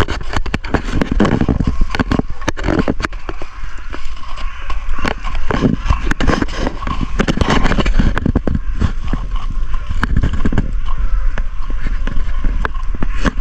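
Footsteps crunching through packed snow and slush, an irregular run of crisp crackles, over a steady low rumble on the microphone.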